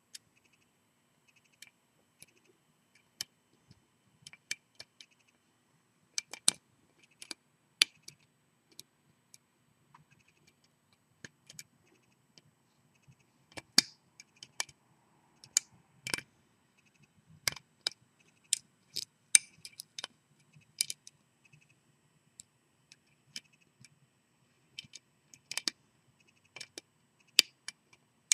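Irregular sharp metallic clicks and ticks from a hook pick and tension bar working the pins of a 5-pin U-Change mortise lock cylinder during lock picking, some clicks loud, with short pauses between bursts.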